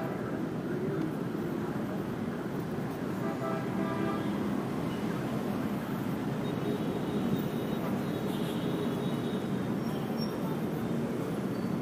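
Steady city street traffic noise, with a brief horn toot about three seconds in.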